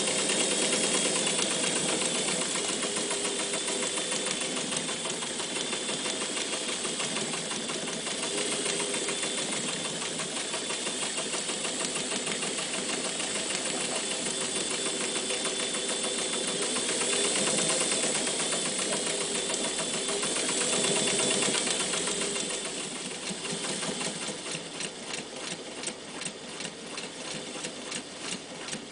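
Jones 104 electric sewing machine stitching fast through thick layers of denim, a quick, steady needle clatter. About 23 seconds in it slows to separate stitch-by-stitch beats, roughly two a second, as it sews through a leather belt.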